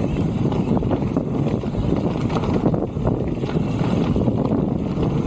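Whitewater rushing and splashing in a river rapid, a steady dense roar broken by many small splashes, with the microphone buffeted by wind and spray.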